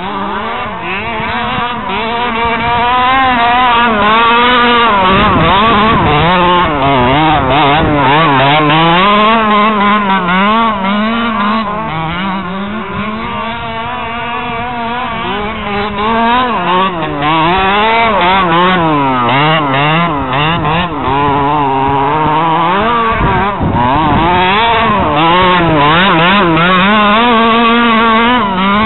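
Small two-stroke engine of a gas-powered RC Baja buggy running continuously, its revs rising and falling several times with a fast warble in pitch as it is throttled.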